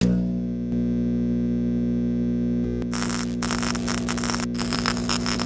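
Steady electrical mains hum with a buzz of many overtones, joined about three seconds in by loud, dense crackling like an electric arc, under the hum.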